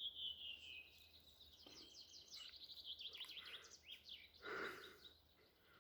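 A small songbird singing faintly: a high trilled phrase that falls in pitch, then a fast run of repeated high notes. There is a short rustle about four and a half seconds in.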